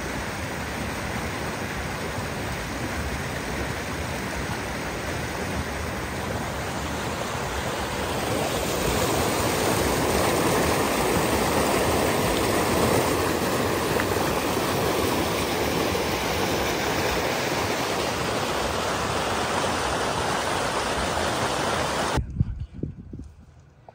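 Fast mountain river rushing and splashing over rocks in whitewater rapids, a steady dense roar that swells louder midway as the rapids come close. It cuts off abruptly near the end.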